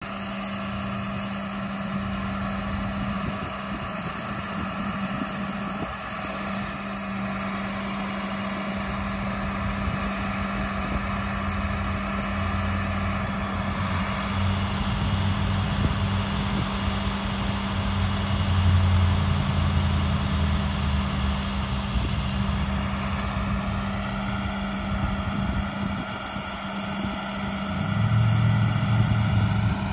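Diesel engine of an International 7400 truck running steadily while it drives the hydraulics that raise the Elliott sign-crane boom. There is a constant low hum, and the note swells and eases with the hydraulic load, getting louder around the middle and again near the end.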